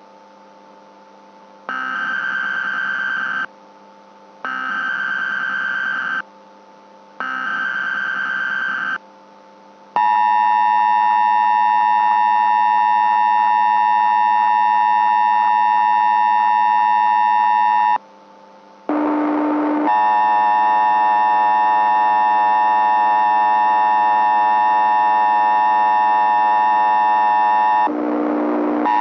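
Emergency Alert System tones: three short bursts of SAME header data a second apart, then the two-tone attention signal held steady for about eight seconds. After a short noisy blip, a second, different steady alert tone sounds for about eight more seconds.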